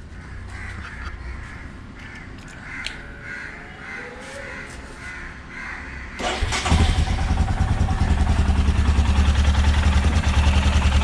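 Royal Enfield Himalayan single-cylinder engine starting about six seconds in and settling into a steady idle with even exhaust pulses. It runs on a freshly fitted exhaust manifold gasket, with no leaking, ticking or backfiring. Before it starts, birds call over a low background hum.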